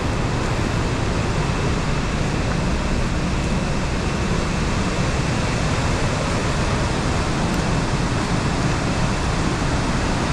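Fast-flowing stream rushing steadily, a loud even wash of water noise with no breaks.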